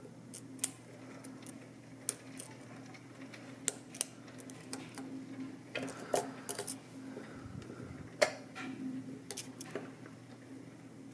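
Small metal clicks and scrapes from a lock pick and tension tool working the sliders inside a Vidmar slider lock's keyway. The clicks are irregular, with the sharpest about eight seconds in, over a steady low hum.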